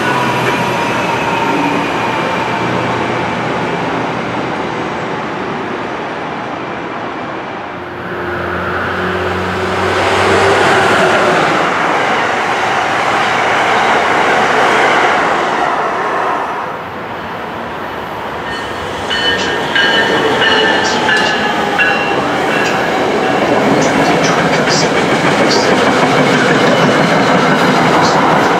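Electric passenger trains running past on the main-line tracks: a continuous loud rumble and rush of steel wheels on rail. A fresh swell of train noise builds about eight seconds in. In the last third there is rapid clicking and brief high-pitched tones.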